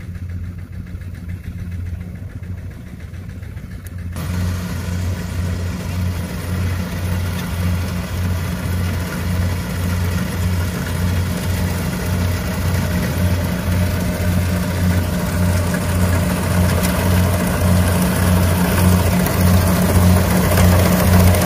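A Chinese-made tracked rice combine harvester runs while cutting rice, its engine humming low with an even pulse. About four seconds in, a brighter, noisier mechanical layer suddenly joins, and the sound grows steadily louder as the machine comes closer.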